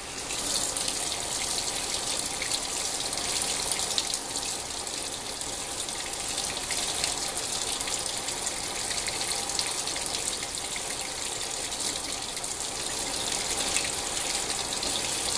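Hot water tap running at a steady full flow, drawing on the tank to make the gas water heater's burner fire; no burner is heard coming on.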